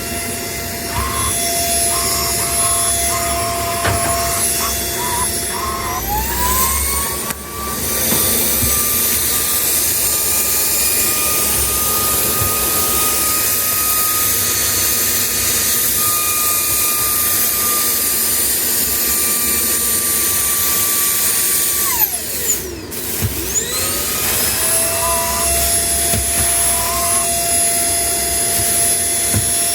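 Household vacuum cleaner running with a steady motor whine. About six seconds in, the whine climbs to a higher pitch as the motor is turned up to its strong setting, and it holds there until about 22 seconds, when it winds sharply down and spins back up to the lower pitch.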